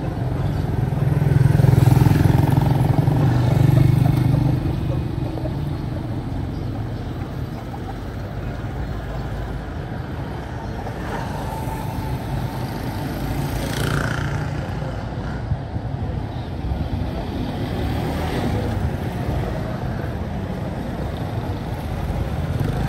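Busy street traffic noise. A motor vehicle's engine runs loud and close in the first few seconds, then fades back into the steady hum of traffic.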